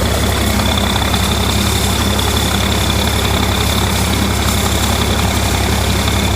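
Tractor engine running at a steady speed while pulling a hay rake, with a thin, steady high whine over it.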